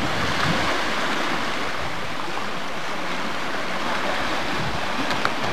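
Steady rush of wind and open water, heard from the deck of a boat.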